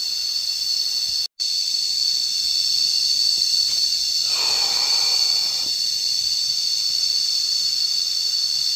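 Cicadas singing in a loud, steady, high drone. The sound drops out for an instant just over a second in, and a short rush of lower noise rises and fades around the middle.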